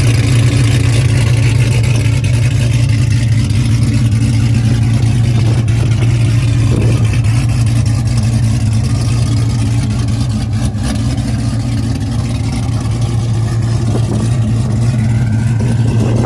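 Cammed, supercharged 406 cubic inch Hemi V8 in a Dodge Charger Hellcat running steadily with a low, even drone, without big revs, slightly easing off in the second half.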